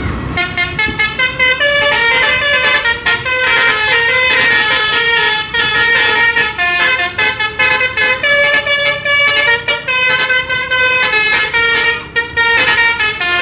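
Basuri telolet bus horn, a multi-tone air horn, playing a fast tune of short notes that keep changing pitch, with a brief break near the end before it cuts off suddenly.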